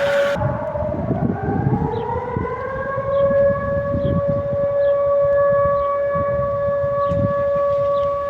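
Civil defence warning siren sounding a steady wail in a test of the warning system. A second rising tone levels off at the same pitch within the first three seconds.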